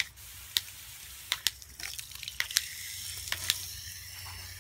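Water from a garden hose spray nozzle hissing onto the blades of a reel mower's cutting reel, rinsing off backlapping compound, with scattered sharp ticks.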